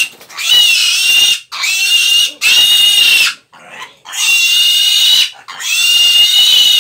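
Young piglet squealing in a series of long, loud, high screams, each about a second long with short breaks between, as it is held up by its front legs and given an injection.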